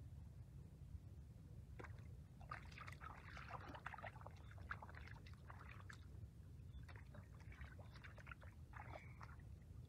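Hands splashing and scooping through shallow muddy water while groping for catfish: faint, irregular small splashes and sloshes from about two seconds in until near the end, over a steady low rumble.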